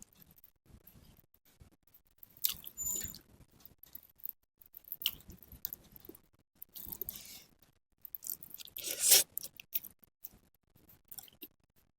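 Close-miked eating sounds: irregular chewing and biting of food, with louder bursts about three seconds in and again about nine seconds in.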